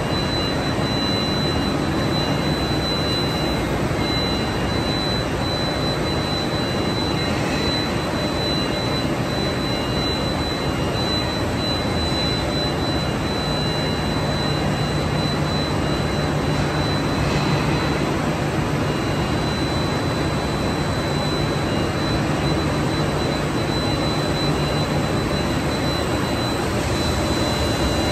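A PP tape extrusion line running: steady machine noise from its motors and fans, with a thin high whine throughout and a low hum that joins about halfway through.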